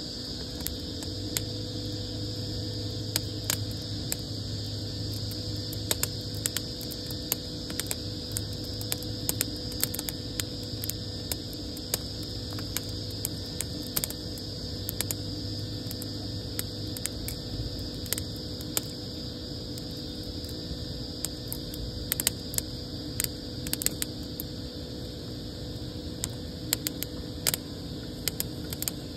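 Wood fire of sticks and logs burning in an outdoor steel fireplace, crackling with many small irregular pops over a steady background hum.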